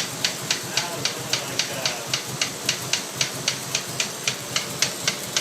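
A 1992 Mitsubishi 3000GT VR4's twin-turbo V6 idling warm with a sharp, even knock about four times a second. The owners hear the knock coming from cylinder 6, near the oil filler cap; it appeared after eight or nine minutes of warm-up, together with black smoke from the tailpipe.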